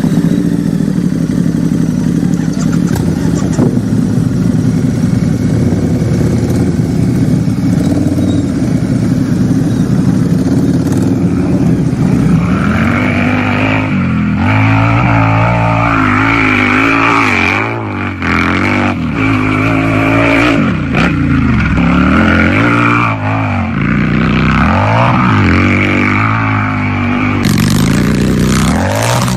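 Harley-Davidson motorcycle's V-twin engine running steadily, then revved over and over from about twelve seconds in, its pitch rising and falling with each rev.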